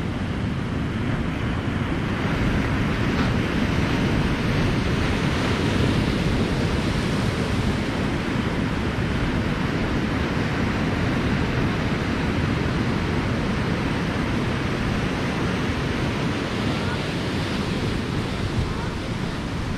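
Surf breaking and washing over a rocky, pebbly shore, with wind rumbling on the microphone; a steady wash of noise.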